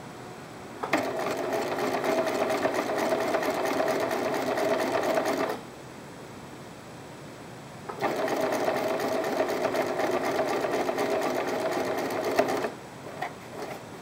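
Electric sewing machine top-stitching through layered cotton fabric, running steadily in two spells of about five seconds each, with a stop of about two seconds between them. A few light clicks come near the end.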